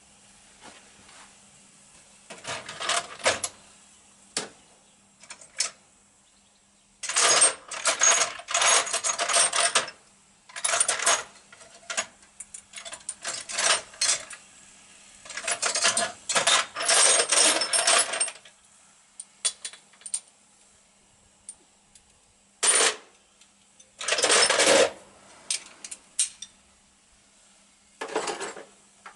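Loose metal engine parts and hand tools clinking and rattling against each other in irregular bursts, with quiet gaps between, as the parts are handled during an engine stripdown.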